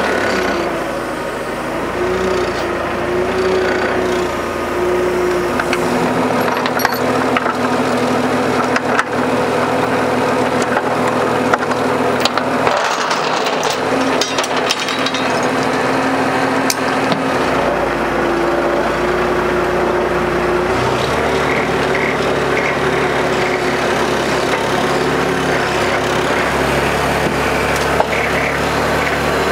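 An old forklift's engine running steadily, its speed stepping up and down a few times as the lift is worked and driven. Scattered metallic knocks and clanks come over it.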